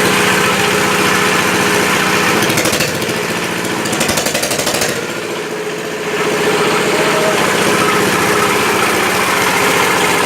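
Homemade salt-water welding machine buzzing steadily under load, with a stretch of crackling welding arc in the middle, about two and a half to five seconds in.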